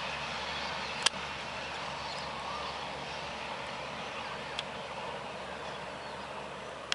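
Steady rushing noise of a passing train, fading slowly, with a few sharp clicks.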